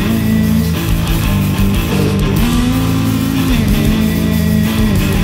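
Live rock duo playing loud: an electric guitar riff over a drum kit. About two seconds in, one held guitar note slides up, then drops back down after a second or so.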